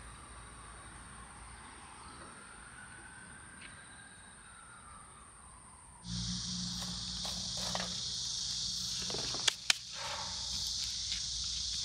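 A steady, high-pitched insect chorus. It is faint at first and suddenly much louder about halfway through, with a low hum beneath it and two sharp clicks a few seconds later.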